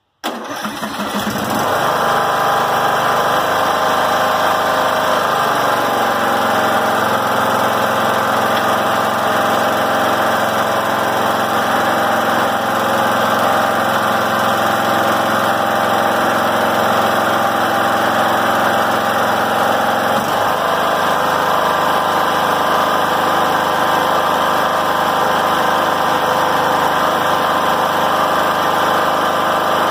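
Briggs & Stratton Intek 17 hp riding-mower engine starting at once and settling into a loud, steady run on its freshly reset governor. About twenty seconds in, its low note shifts slightly.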